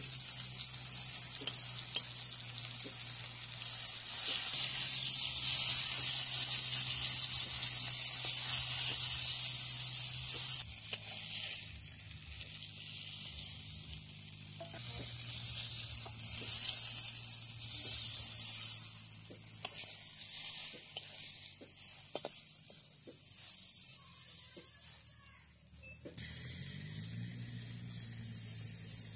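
Oil sizzling as starfruit slices fry in an iron kadai. The sizzle is loudest for the first ten seconds or so, then drops lower, with scattered scrapes and taps of a metal spatula on the pan.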